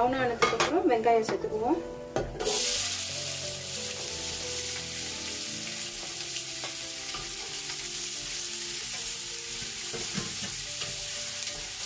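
Sliced onions frying in hot oil with whole spices, sizzling steadily while being stirred with a wooden spatula; the sizzle starts suddenly about two and a half seconds in. Before it, a couple of seconds of background singing.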